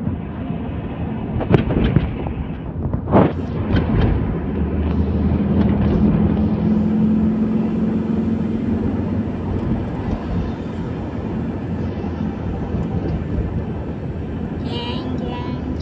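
Car driving along a road, its engine and tyre noise running steadily, with a few knocks in the first four seconds.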